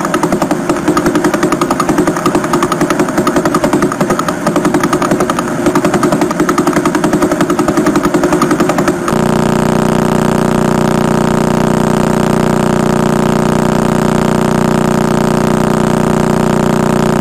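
Pulsar radio signals recorded by radio telescope and played as sound: a rapid train of pulses. About nine seconds in it cuts abruptly to another pulsar whose pulses come so fast they merge into a steady buzzing hum.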